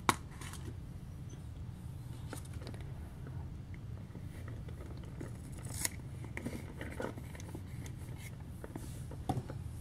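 Soft rustles, scrapes and small taps of a paper sticker being peeled from its backing sheet and pressed onto a cardboard sticker-scene page, with a sharper click just after the start and another about six seconds in, over a low steady hum.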